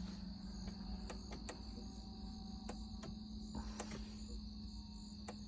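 Crickets chirping steadily over a low, even hum, with a few faint, scattered clicks.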